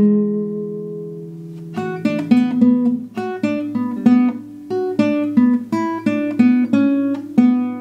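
Nylon-string classical guitar fingerpicked solo: a chord rings and fades, then about two seconds in a steady pattern of single plucked notes starts, roughly three a second.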